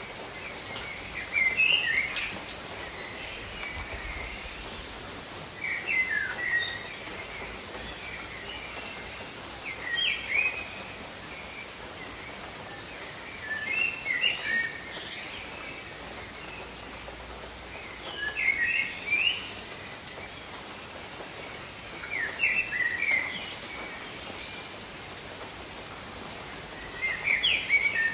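Steady gentle rain falling on garden foliage, with a songbird singing a short chirping phrase about every four seconds.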